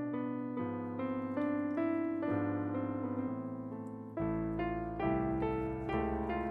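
Solo piano music playing a melody over chords, with deeper bass notes coming in about four seconds in.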